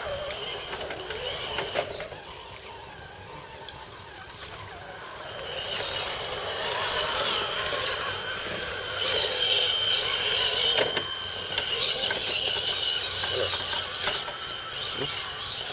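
Electric RC scale crawler trucks driving over rocks and through mud, their motors and geared drivetrains whirring and ratcheting. The whirring grows louder about five or six seconds in as the trucks come close.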